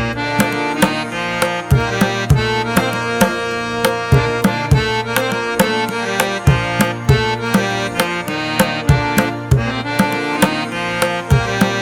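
Instrumental music: tabla drumming, with low strokes that bend down in pitch, over sustained held notes.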